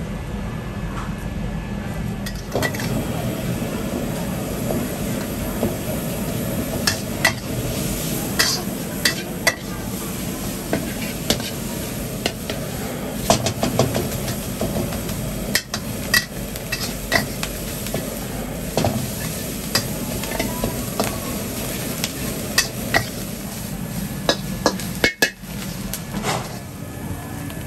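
Stir-frying in a wok over a gas flame: the food sizzles steadily while a metal spatula scrapes and clanks against the wok, with irregular sharp strikes starting about two and a half seconds in.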